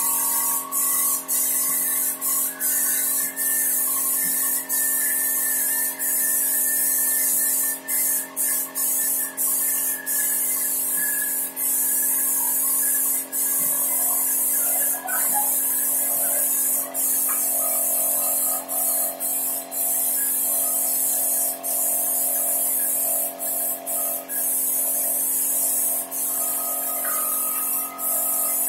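Compressed-air spray gun hissing as wood polish is sprayed onto a panel, in long passes broken by brief stops where the trigger is let go, over a steady hum.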